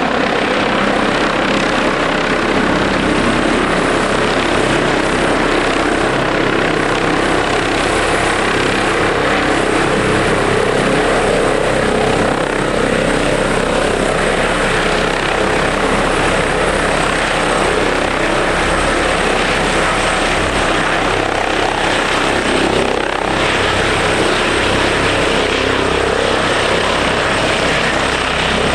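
Helicopter hovering low and manoeuvring in to land, its rotor and turbine running steadily, with a faint high turbine whine over the rotor noise.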